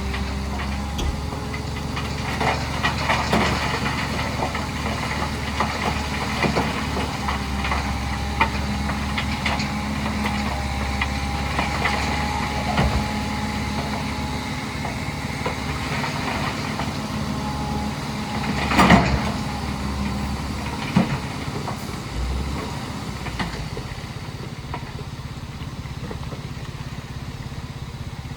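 Heavy diesel earthmoving machinery running steadily, with stones clattering and knocking. The loudest knock comes about nineteen seconds in, another follows about two seconds later, and the deep engine hum drops away soon after.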